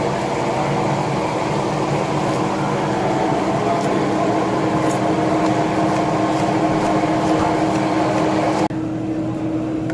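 Steady restaurant room noise: a constant mechanical hum with a low murmur of background voices. The sound changes abruptly near the end, as at an edit cut.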